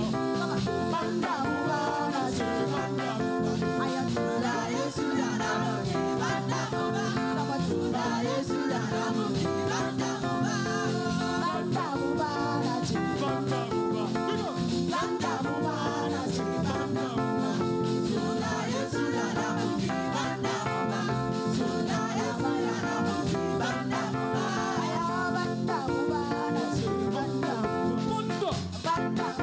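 Live praise music with singing over a band led by guitar, played at a steady beat.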